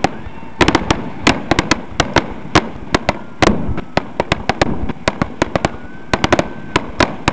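Aerial firework shells bursting in a rapid finale barrage: sharp bangs in irregular succession, several a second, with no let-up.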